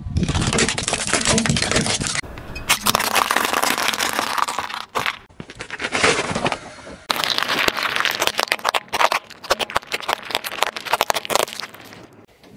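A car tyre rolling slowly over and crushing small objects, such as plastic toy figures and a cone covered in M&M's candies. It gives dense cracking and crackling in a few short stretches that change abruptly. The crackle is thickest in the second half, as a run of rapid sharp cracks.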